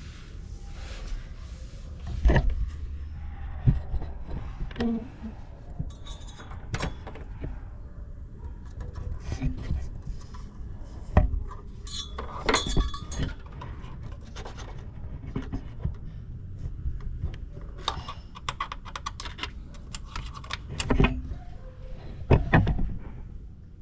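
Hand tools and wire being worked on metal: scattered clinks, taps and rubbing at an irregular pace, with a few louder knocks, while the loose handbrake-cable tubes are wired back to their support.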